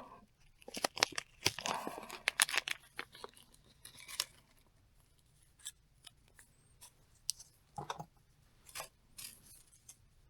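Hands handling small mirror-decal pieces and double-sided tape backing: a cluster of short crinkling, tearing-like noises over the first few seconds, then scattered light clicks and taps.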